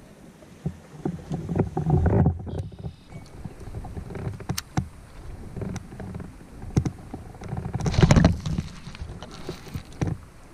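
Irregular knocks, bumps and rustling of an angler moving and handling a rod in a fishing kayak, with two louder stretches about two and eight seconds in.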